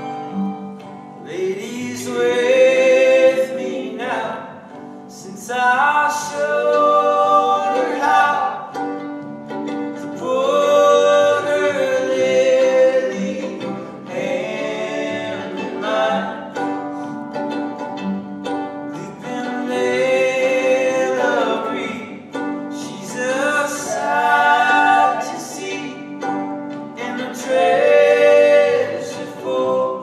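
Live band music: a slow melody in long phrases that swell every few seconds over a steady accompaniment.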